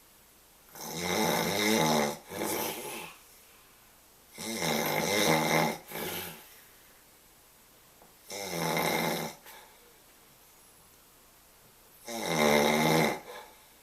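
A sleeping man snoring: four loud, pitched snores about four seconds apart, each followed by a short, quieter breath.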